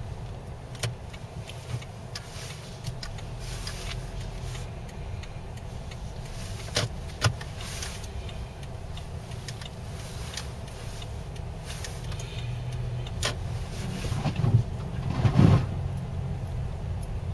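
Inside a car driving slowly on a slushy, snow-rutted street: steady low engine and road rumble, with scattered sharp clicks and knocks. A louder low thumping comes a couple of seconds before the end.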